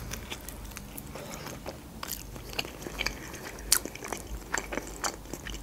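A bite into a pan-fried khinkali (Georgian dumpling) dipped in sauce, then chewing. The fried dough crunches in many short, crisp clicks spread through the chewing.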